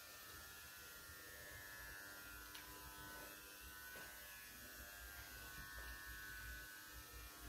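Faint steady electrical buzz with a low hum, heard as room tone inside a small tiled washroom.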